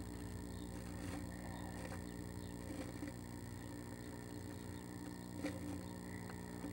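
Steady low hum with occasional faint scratches and clicks as a female northern flicker shifts and turns on wood shavings in a nest box; the sharpest click comes about five and a half seconds in.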